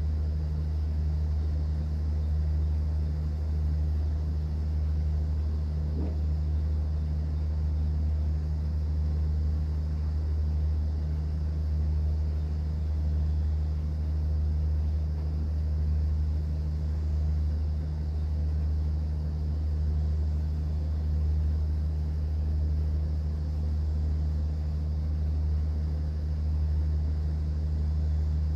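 Steady low drone of a cruise boat's engine running, even and unchanging, with a faint click about six seconds in.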